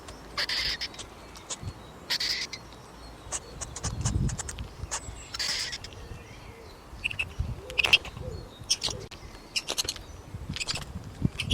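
A series of short, high chirping calls and sharp clicks from a small animal, coming irregularly every second or so.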